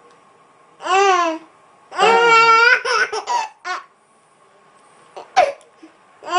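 Baby's high-pitched squealing laughs and babbles: one short call about a second in, a longer one around two seconds in, then a few short bursts, with another starting near the end.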